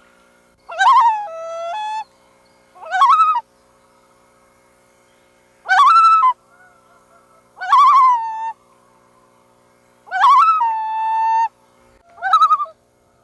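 Loons calling: six short calls spaced about two seconds apart, each a pitched note that rises and then falls, a few stepping down to a second, held pitch.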